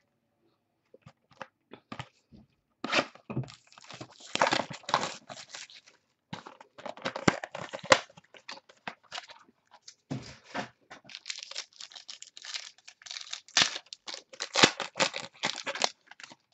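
Clear plastic shrink-wrap being torn off a sealed box of trading cards and crumpled in the hand, crackling in irregular bursts that start about three seconds in.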